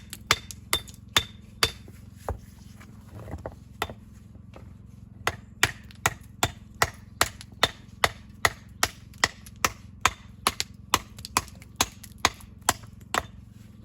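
Hammer striking a building stone to dress and shape it: a quick run of sharp blows, some with a brief ring, then after a pause a steady series of about two and a half blows a second.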